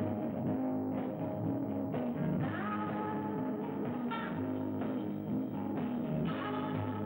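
Improvised psychedelic rock jam: an electric guitar plays over held low bass notes, with higher notes sliding upward now and then.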